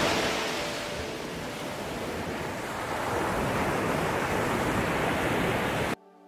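Sea waves washing and breaking over a rocky shore: a steady rush of surf that cuts off suddenly near the end.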